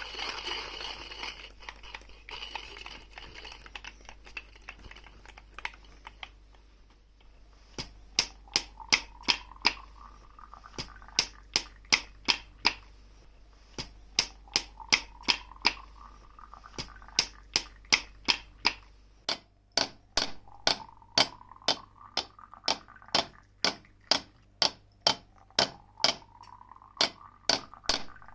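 Coffee-making tool sounds edited into a beat: after a fading hiss, a steady rhythm of sharp clicks, several a second, starts about eight seconds in, with a rising tone that repeats every few seconds.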